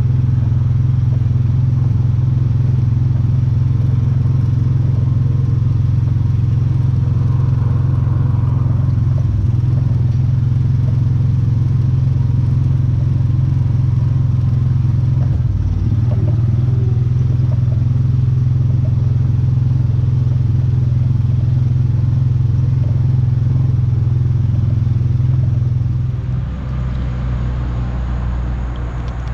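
John Deere Gator utility vehicle's engine running steadily under way, hauling a load of logs. About 26 seconds in, the engine note drops lower and quieter as it slows down.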